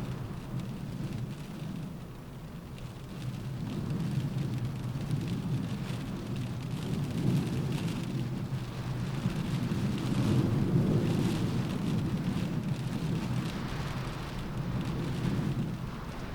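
Rain falling on a car roof, with a steady patter of drops, under a low rush of wind that swells and eases several times, loudest just past the middle.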